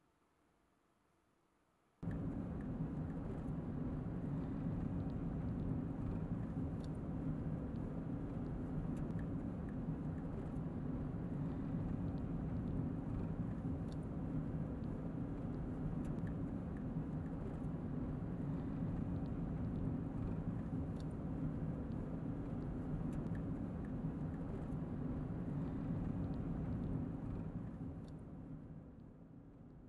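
Car interior drone while driving, a steady engine and road noise heard from inside the cabin. It cuts in suddenly about two seconds in and fades out near the end.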